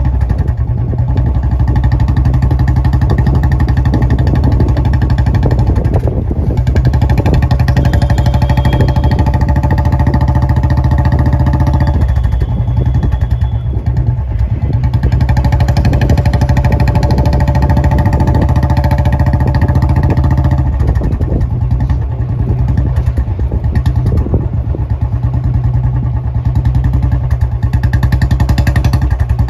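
Motorcycle engine running steadily at low speed, heard close up, over a strong low rumble. Its hum eases off and picks up again a few times.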